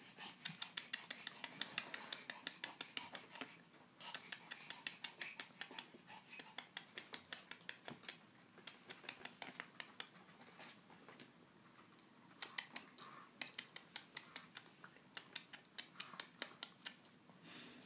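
Puppy claws clicking on a wooden floor: fast, even runs of sharp clicks, about eight a second, stopping and starting four times.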